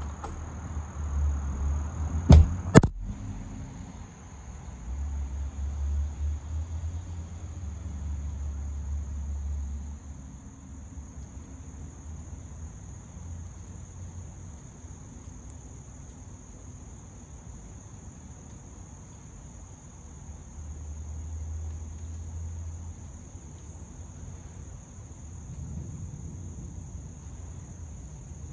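Insects droning steadily at a high pitch. Two sharp knocks come about two and a half seconds in, and a low rumble comes and goes underneath.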